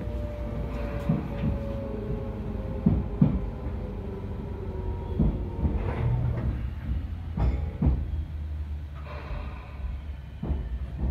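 Tobu 10000-series EMU motor car (DC compound traction motors, field-chopper control) slowing on the approach to a station, heard from inside the car. The motor and gear whine falls in pitch as the train loses speed, over a running rumble with wheels clacking across rail joints.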